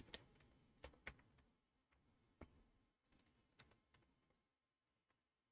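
A handful of faint, scattered keystrokes on a computer keyboard, about six clicks, most of them in the first second and a half.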